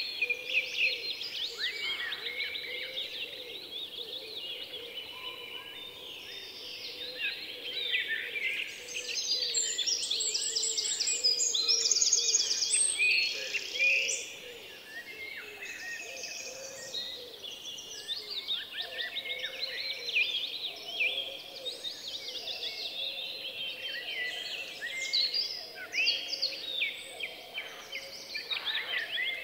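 A chorus of many small birds chirping and singing together in quick, overlapping calls, busiest and highest-pitched about a third of the way in.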